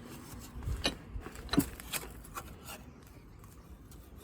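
A few light clicks and knocks with some rubbing as a bench vise is tightened on a plastic radiator fan. There are about five separate clicks in the first three seconds.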